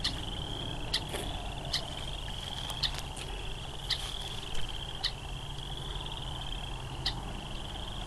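Frog chorus: high trills overlapping one into the next without a break, with short sharp calls about once a second.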